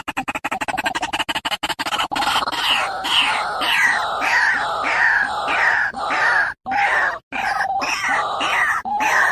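White-breasted waterhen calling: a fast run of short clucking pulses, then from about two seconds in loud repeated harsh notes, two to three a second. There are brief dropouts near the end.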